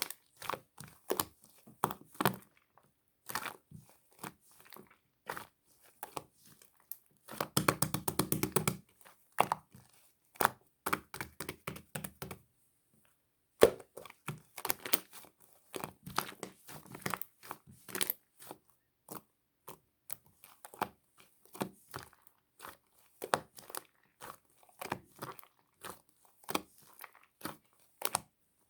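Slime being squeezed, stretched and poked by hand, making a string of sharp wet clicks and pops. A fast, dense run of crackling pops comes about eight seconds in, and there is a brief pause a little before the middle.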